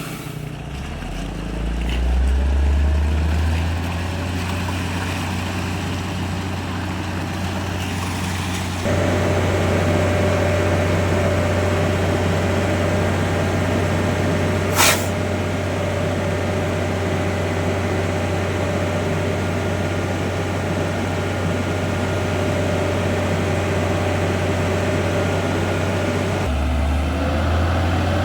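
Hino concrete mixer truck's diesel engine running, rising in the first few seconds and growing louder about a third of the way in, where a steady whine joins it. A short burst of air hiss comes about halfway through.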